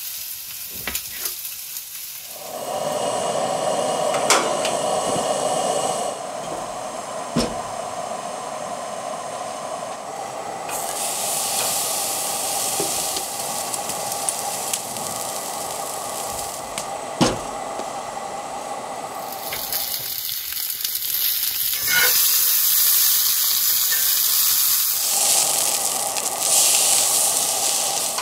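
Food sizzling in a run of short cuts: vegetables frying in a skillet, then a thick steak searing on the hot grate of a small portable grill. The hiss changes with each cut, with a few sharp clicks along the way.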